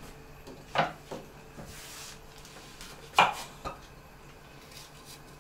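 Kitchen knife cutting apples on a wooden cutting board: two sharp knocks of the blade on the board, about a second in and, louder, about three seconds in, followed by a fainter tap.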